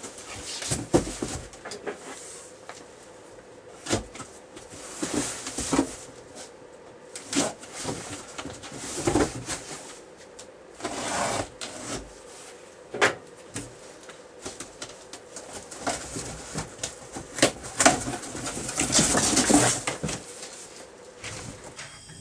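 Cardboard boxes being handled and stacked on shelving: irregular thumps and knocks as boxes are set down, with scraping and rustling as cardboard slides against cardboard, including a longer scrape near the end.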